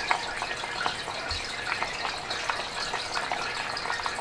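Pot of pork kimchi stew boiling on medium heat: a steady bubbling with many small pops.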